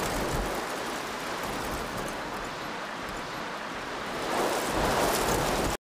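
Heavy rain pouring in a steady hiss, swelling a little near the end and then stopping abruptly.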